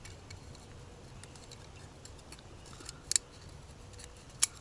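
Faint small clicks and ticks of hands working with small parts, with a sharp double snap about three seconds in and another single snap near the end.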